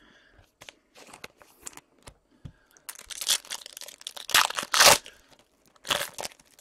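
Foil trading-card pack wrapper being torn open and crinkled by hand. Light rustles come first, then a loud run of crackling tearing about three seconds in and one more burst near the end.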